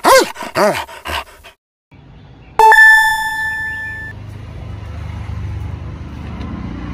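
A few quick cartoon-style chirps that rise and fall in pitch, then a short pause and a sudden bright ringing tone that fades over about a second and a half. A steady low background hum and hiss runs on under it.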